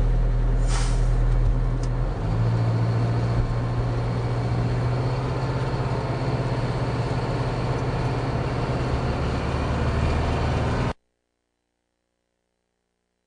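Heavy truck's diesel engine running steadily at a low pitch as the truck drives across the bridge, with a short hiss about a second in. The sound cuts off suddenly near the end.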